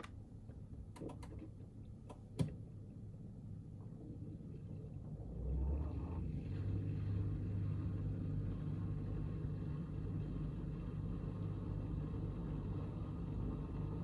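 A few clicks from presses on a Bosch dishwasher's control buttons, the loudest about two and a half seconds in. About five and a half seconds in, the dishwasher's pump starts with a steady low hum as the Pots and pans 70°C cycle begins.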